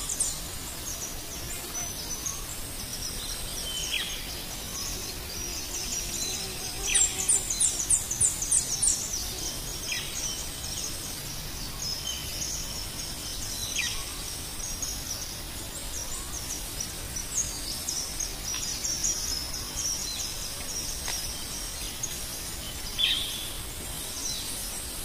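Birds and insects calling over a steady background hiss: repeated short high chirps and brief falling whistles every few seconds, with a quick run of about seven high notes around seven to nine seconds in.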